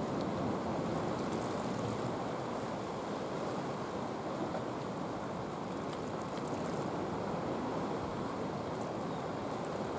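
Steady seaside wind and water noise at a fishing spot, an even rushing hiss with a few faint light ticks now and then.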